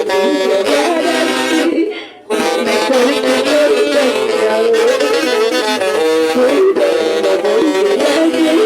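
An orchestra playing music, with several melody lines moving together in harmony and a short break about two seconds in.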